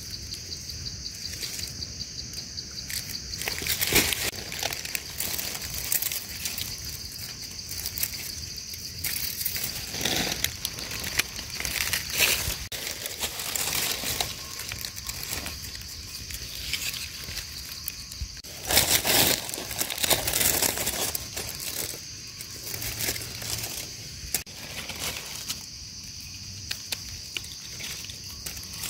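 Dry leaf litter crunching and rustling irregularly as the forest floor is worked over, with louder crunches about four seconds in and again around twenty seconds in. Under it, a steady high insect drone of cicadas or crickets.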